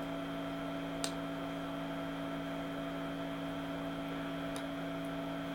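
Jamberry Mini Heater, a small nail-wrap heater, running with a steady, quiet electrical hum. A light click comes about a second in.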